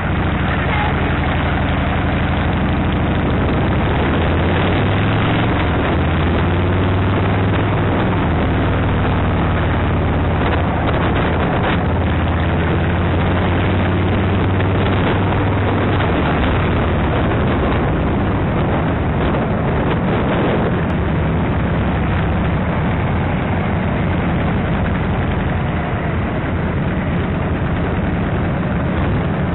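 Motorcycle engine running while riding, a steady low drone that is strongest for several seconds in the middle, over a constant rush of wind on the microphone.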